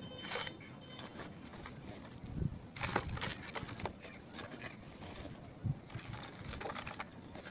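Dirt being scooped out of a plastic sack with a small steel bowl and tipped into a planter pot: irregular gritty scrapes and plastic rustles.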